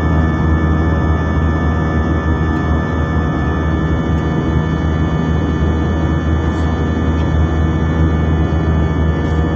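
Steady drone of an airliner's jet engines heard from inside the cabin in flight: a low rumble with several steady tones over it.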